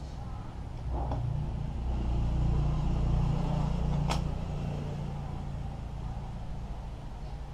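Low engine rumble of a passing vehicle that swells and fades over a few seconds. There is a sharp click about four seconds in.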